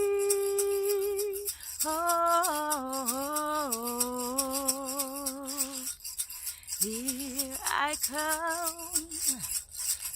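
A woman singing long wordless notes that slide up and down between pitches, breaking off briefly about two seconds in and again around six seconds, and falling away near the end. A hand rattle is shaken steadily in an even rhythm behind the voice.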